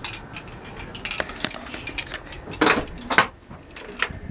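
Keys jangling, with scattered light clicks and two louder knocks about two and a half and three seconds in.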